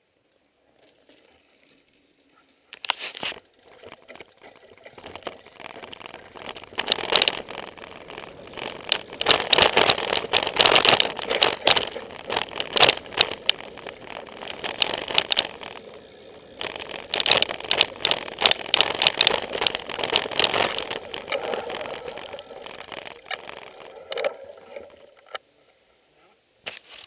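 Mountain bike rattling and clattering down a rough dirt trail: quick irregular knocks from the chain, frame and suspension over tyre noise. A sharp knock comes about three seconds in, the clatter builds and runs on for about twenty seconds, then drops away near the end.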